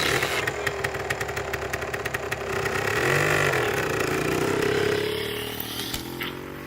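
Razor MX650 electric mini dirt bike setting off at full power: it starts suddenly, its motor whines up under a rapid clicking rattle, then fades away near the end as it rides off.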